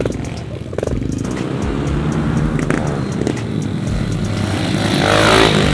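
Small pit bike engine revving under throttle as the bike accelerates past close by, growing louder to a peak near the end.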